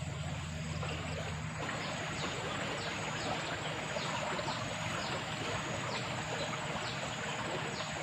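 Steady rush of running water, with a low hum underneath that stops about a second and a half in. From then on, a short high falling chirp repeats several times.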